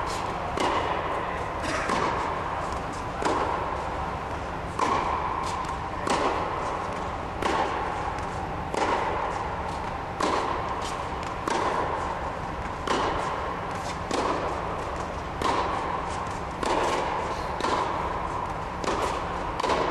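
Tennis ball struck by a racket and bouncing on a hard indoor court during a groundstroke drill: sharp pops about every second and a half, echoing in a large hall.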